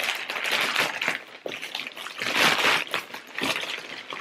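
Crinkling and rustling of a plastic mailing bag being pulled open by hand, in uneven surges with the loudest rustle a little past halfway.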